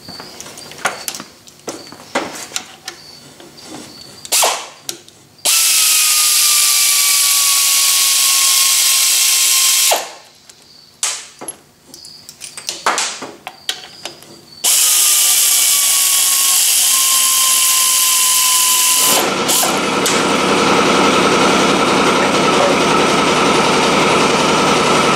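A handheld power tool running out the bolts that hold a Logan lathe's quick-change gearbox, in two runs of about four to five seconds each. Its whine sags slightly in pitch during each run, with metal clicks and clinks of handling before and between them. From about three-quarters of the way in, a different steady mechanical noise takes over.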